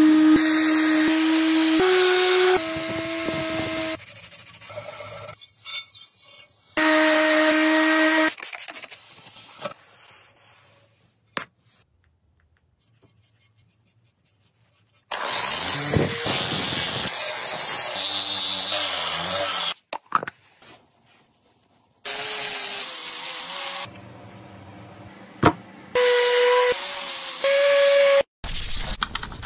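Electric random orbital sander running against an alloy motorcycle engine side cover in several separate bursts of steady motor whine, with a near-quiet stretch in the middle.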